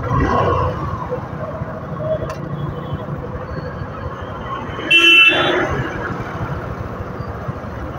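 A vehicle horn honks once, briefly, about five seconds in, over steady engine and traffic noise of motorcycles and cars moving slowly.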